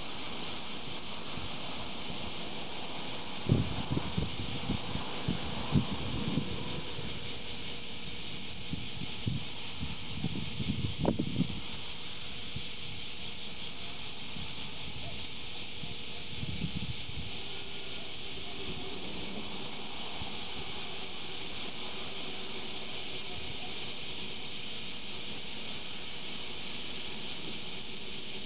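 A steady, high-pitched drone of summer cicadas in the surrounding trees. Wind buffets the microphone in several low gusts during the first dozen seconds and once more just past the middle.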